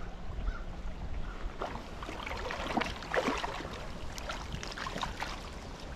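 River water splashing in a run of small, irregular splashes and drips through the middle, over a low rumble of wind on the microphone.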